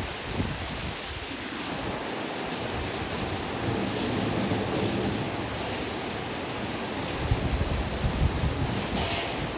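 Heavy rain falling, a steady dense hiss, with low gusty rumbles swelling in about seven seconds in.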